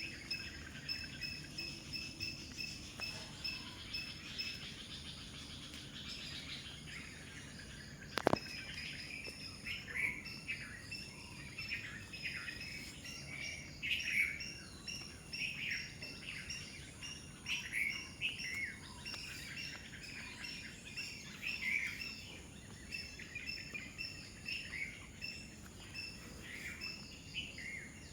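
Many birds chirping and calling in quick, overlapping short notes over a steady high insect drone. A single sharp click comes about eight seconds in.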